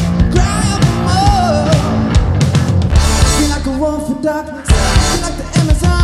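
Live rock duo playing at full volume: a drum kit with cymbals hit hard and heavy electric guitar, with a high lead line bending up and down above them. The loudness drops briefly twice in the second half before the band hits back in.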